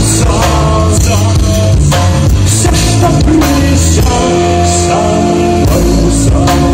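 Live rock band playing: bass guitar, electric guitar and drum kit, with a man singing in Russian.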